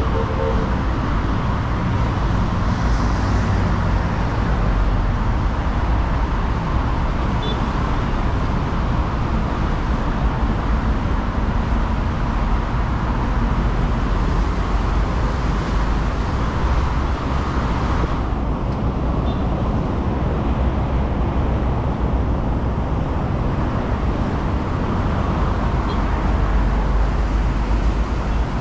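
Steady city street traffic noise: a continuous wash of passing cars and engines, heaviest in the low rumble, with no single vehicle standing out.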